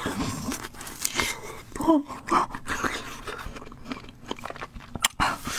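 Close-up mouth sounds of a person chewing food: repeated small wet clicks and crunches as she bites and chews. A brief hum from her about two seconds in.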